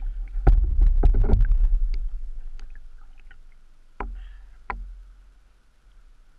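Water sloshing and slapping against the housing of a GoPro mounted on a floating water ski. A cluster of splashes and knocks comes in the first second and a half as the ski is handled, then two single sharper knocks about four and four and a half seconds in, with the sound dying away after each.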